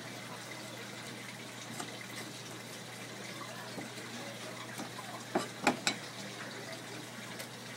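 Steady rush of water running from a kitchen tap, with three quick sharp knocks a little past halfway.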